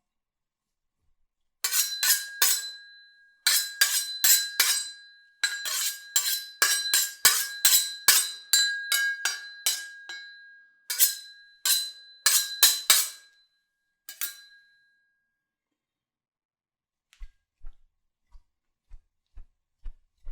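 Steel blades clashing in a sword or knife fight sound effect: a rapid run of sharp metal-on-metal strikes, each leaving a high ringing tone, starting about two seconds in and stopping after about twelve seconds. Near the end, faint low thuds come about twice a second.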